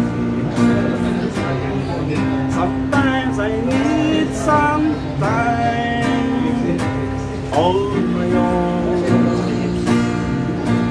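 Background music: strummed acoustic guitar with a singing voice.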